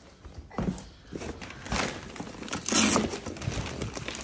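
Handling noise from a foam-lined carry case: irregular rustling and scraping of hands and parts against the foam and straps, loudest about three seconds in.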